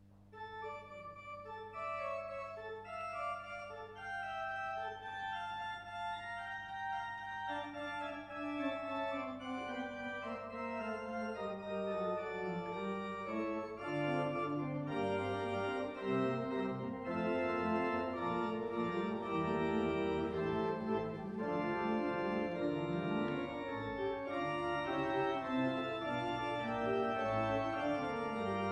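Church organ playing a closing voluntary: a light line of short repeated notes at first, then a descending bass line comes in and the music grows fuller and louder from about halfway through.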